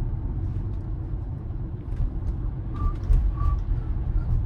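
Road and tyre noise inside a Tesla Model Y's cabin on wet, slushy pavement: a steady low rumble with a few faint ticks. Two short high tones sound close together about three seconds in.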